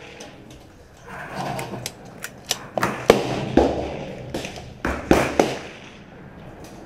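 Rifle shots on a shooting range: about ten sharp reports at irregular intervals from guns along the firing line, the loudest about three and five seconds in.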